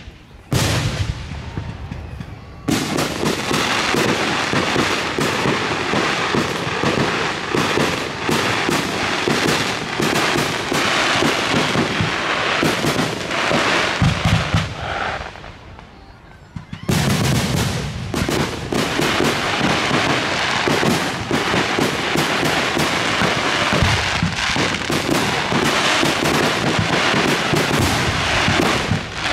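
Aerial fireworks display: shells bursting amid dense, rapid crackling and popping. The cracking dies down for a second or two about halfway through, then starts again just as thick.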